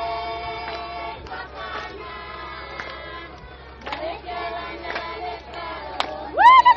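A group of voices singing together. Near the end, a loud high cry rises and breaks into a rapid warbling trill, like ululation.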